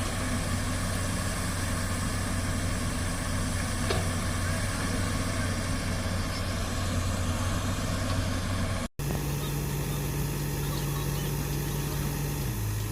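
Heavy construction machine's diesel engine running steadily. After a brief break about nine seconds in, the engine note is higher, then drops back shortly before the end.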